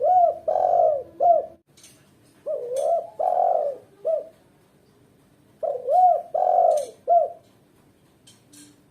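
Female spotted dove (tekukur) cooing in three repeated phrases of three to four arched notes each: the calling of a female dove in breeding condition, used to lure and excite males.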